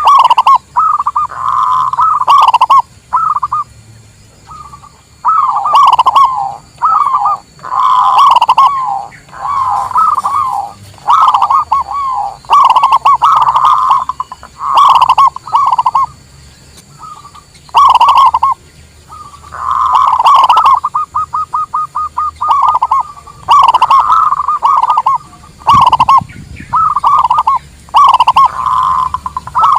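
Zebra doves (perkutut) cooing: loud, rapidly trilled phrases of a few seconds each, repeated with short pauses, with one run of fast, evenly spaced notes about two-thirds of the way through.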